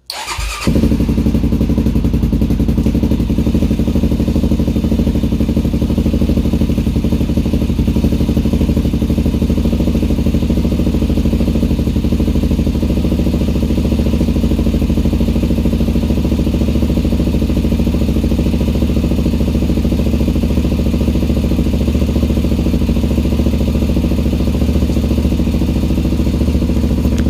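Freshly rebuilt Honda 400EX single-cylinder four-stroke engine catching about half a second in, then idling steadily. It is being run to push fresh oil through its oil tank, oil cooler and motor.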